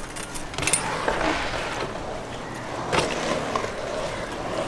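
BMX bike tyres rolling on a concrete skatepark bowl, with a sharp clack about half a second in and another about three seconds in from the bike landing and rattling.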